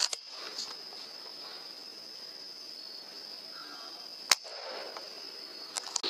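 A single sharp airgun shot a little past four seconds in, over a steady high-pitched whine, with a few faint clicks near the start and end.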